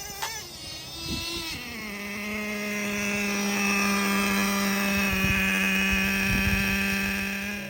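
Traxxas Revo 3.3's small two-stroke nitro engine running. Its pitch wavers at first, then settles into a steady high-pitched drone about two seconds in.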